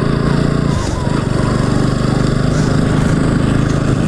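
Motorcycle engine running steadily, heard from on board the bike, with a slight dip in level about a second in.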